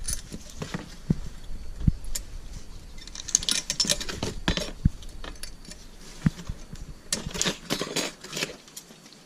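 Old steel brake hardware clips being pried off a brake caliper bracket: scattered light metallic clinks and short scrapes, bunched in two spells.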